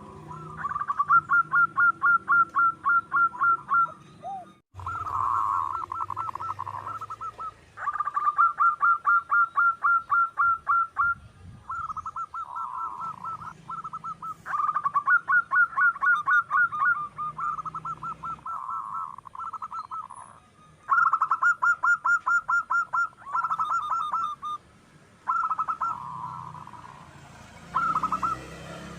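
Zebra dove (perkutut) song: repeated runs of quick, rippling cooing notes, about four or five a second. Each run lasts two or three seconds, with short pauses between runs.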